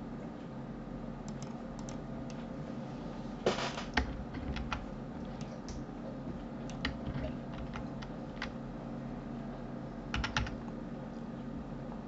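Scattered clicks of computer keyboard keys and mouse buttons, with a couple of quick clusters of clicks, over a steady low hum.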